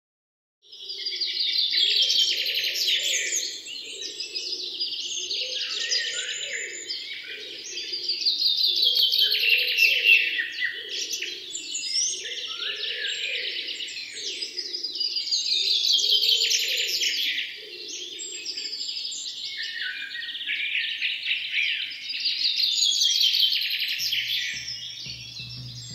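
Birdsong ambience: many birds chirping and twittering together, swelling and fading in waves about every seven seconds. Near the end a low, steady music note comes in under it.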